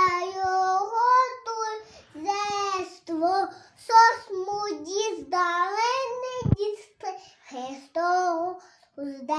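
A young girl singing a Ukrainian Christmas carol (koliadka) unaccompanied, in short phrases with brief pauses for breath.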